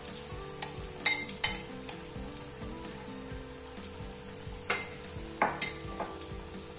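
Oil sizzling steadily in a steel kadhai as bottle-gourd and potato kofte deep-fry, with several sharp clicks as spoonfuls of batter are dropped in.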